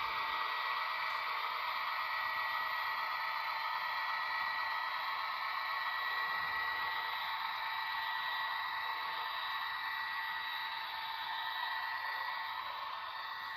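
HO scale model train running along the track: a steady whirring hiss with a thin, even whine, getting a little quieter near the end.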